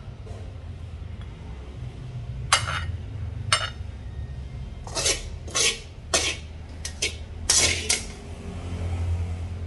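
A wooden spatula scraping and clacking against a porcelain plate as it pushes stir-fried pork and ginger around, about eight short strokes, most of them packed into the second half, over a steady low hum.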